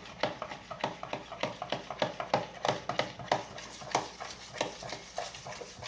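Utensil stirring slime in a bowl, knocking against the bowl in a steady rhythm of about three strokes a second as the activator is mixed in.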